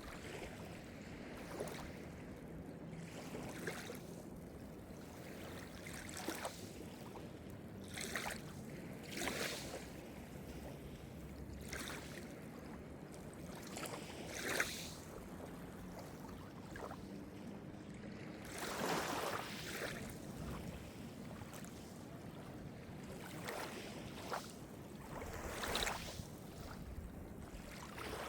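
Small Mediterranean waves breaking and washing ashore every few seconds over a steady low rush of surf. The biggest wash comes about two-thirds of the way in, with another near the end.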